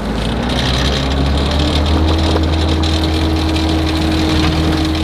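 Engine-driven water pump running steadily under load as it pumps pond water, picking up slightly in the first couple of seconds, with water jetting from the hose.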